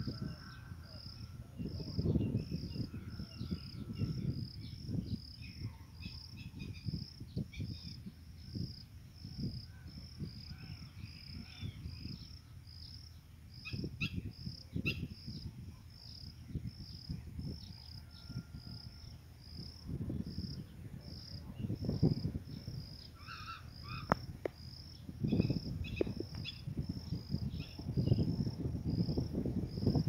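A high chirp repeating steadily, about two a second, from an insect, with a few scattered bird chirps. Gusts of wind buffet the microphone throughout with a low rumble, strongest near the end.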